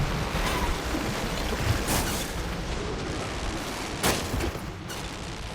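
Action film soundtrack: a steady low rumble with sharp bangs about two seconds in, about four seconds in, and once more shortly after.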